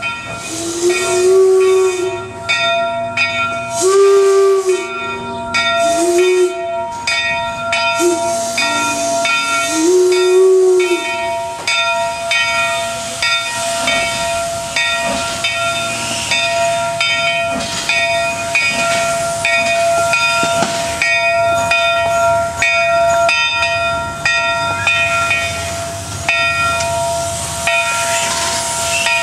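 Whistle of the 1875 Baldwin 4-4-0 steam locomotive V&T #22 'Inyo' sounding about five short blasts over the first ten seconds, over a steady hiss of steam. After that the hiss goes on with a run of quick knocks and clicks from the locomotive.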